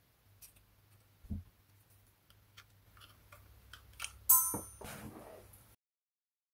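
Small metal hand tools clicking and scraping on the metal screw base of an LED bulb as its centre contact is pried out to free the driver circuit. About four seconds in comes a louder, sharp metallic scrape with a brief ring, and the sound cuts off suddenly a little later.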